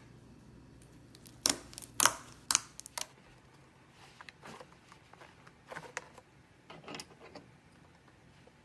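Slime-filled stress ball being cut open, with four sharp snips about half a second apart, then softer scattered clicks and crackles.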